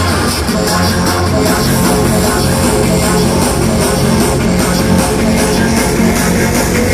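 Loud, continuous hardstyle dance music with heavy, distorted sustained notes over a steady low bass.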